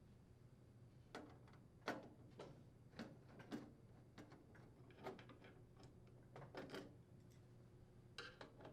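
Faint, irregular clicks and light knocks of a screwdriver working screws out of a vent hood panel, with small metal taps as screws come loose, over a low steady hum.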